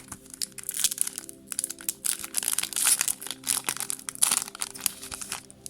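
Foil booster pack wrapper crinkling and crackling as it is torn open and handled, in a dense run of sharp rustles.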